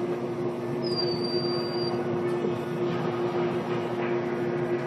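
Steady mechanical hum with a constant low tone, and a faint high whine about a second in that lasts about a second.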